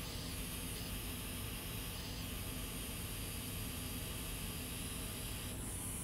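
Steady hiss of blowing air from microsoldering bench equipment, with a slight change in its tone near the end.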